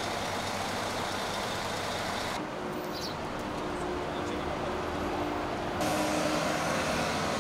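Diesel engines of road-paving machinery, an asphalt paver, dump truck and road roller, running steadily with a low hum. The background changes abruptly twice, about two and a half and six seconds in.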